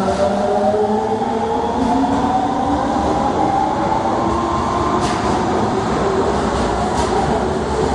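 Osaka Subway 22 series train pulling away, its GTO VVVF inverter traction motors giving several tones that climb together in pitch as it accelerates, over the rumble of the cars. A couple of sharp clicks near the end.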